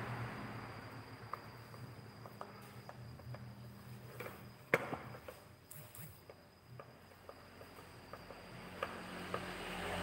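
Scattered light clicks and taps of a metal screwdriver working in a washing machine's pulley-and-gearbox housing, with one sharper knock about halfway through, over a faint steady high whine.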